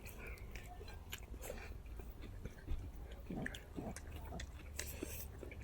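People chewing food, with scattered small clicks and smacks of eating over a low steady rumble.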